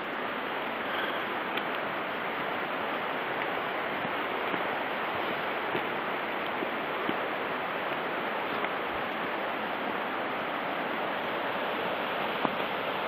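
A stream's water flowing with a steady rush.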